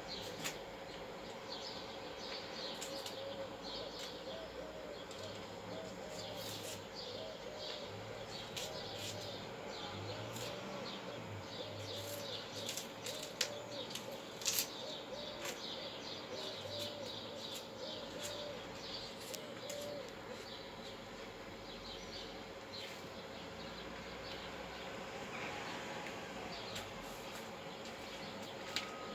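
Small birds chirping in quick repeated notes in the background, with a few sharp clicks.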